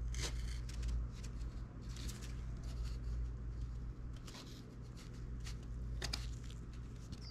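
Gloved hands rustling and scraping against a plastic dashboard panel and a sheet of cardboard while working epoxy around the nut inserts: a string of short scrapes and light taps over a steady low hum.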